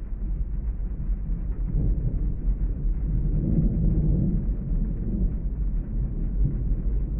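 Muffled rain ambience heard from inside a parked car, with a low thunder rumble that swells about three seconds in and fades back.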